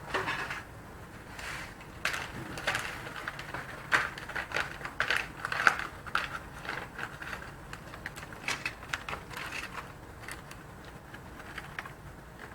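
Small hard parts clicking and rattling irregularly as they are handled and rummaged through, as in a bin of spare drone-frame parts; the sharpest clicks come around the middle.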